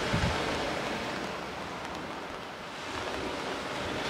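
Small sea waves breaking and washing up a pebble beach, the surf swelling near the start and again about three seconds in. Wind buffets the microphone briefly at the start.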